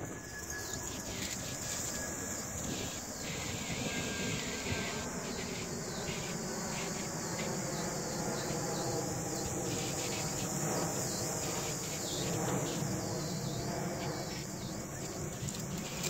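Ocean surf breaking and washing up the beach, heard as a constant hiss with no distinct impacts.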